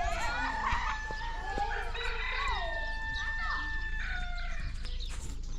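A rooster crowing: one long, held crow from about two seconds in, lasting about two seconds.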